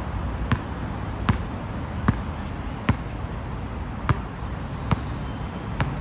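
Basketball being dribbled on a hard outdoor court: seven sharp bounces at a steady pace, about one every 0.8 seconds, over a steady low background rumble.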